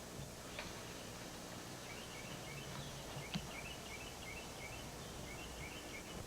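A bird chirping in quick series of short high notes, over a steady low hum, with a single sharp knock about three and a half seconds in.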